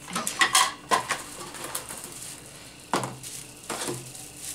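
Small plastic kit parts and their packaging clicking, rattling and rustling as they are handled and taken out of a cardboard box. There is a quick run of clicks about a second in, and two louder short knocks near the end.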